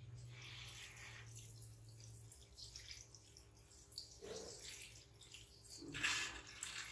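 Water from a handheld shower head splashing onto a wet baby monkey and the tiled floor. Two short, sharper sounds come through about four and six seconds in, the second the loudest.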